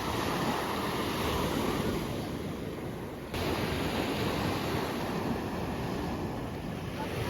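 Ocean surf washing, a steady rushing noise of waves, with an abrupt jump in level and brightness about three seconds in.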